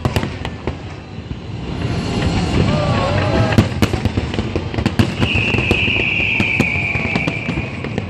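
Aerial fireworks display going off: a rapid run of sharp bangs and crackles, with a steady high whistle lasting about two and a half seconds from about five seconds in.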